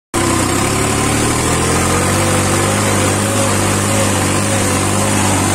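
New Holland tractor's diesel engine running steadily, heard up close from the driver's seat as the tractor moves along; the sound cuts in abruptly just after the start.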